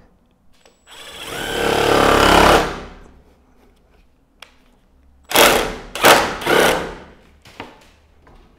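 Cordless drill driver screwing a fixing with a washer into a plastic gutter: one run of about two seconds that builds in loudness, then three short bursts a few seconds later as the screw is driven home.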